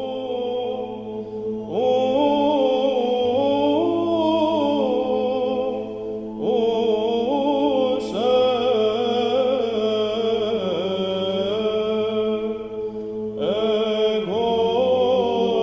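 Orthodox church chant: a melody moving in slow, ornamented phrases over a steady held drone, with new phrases beginning about 2, 6 and 13 seconds in.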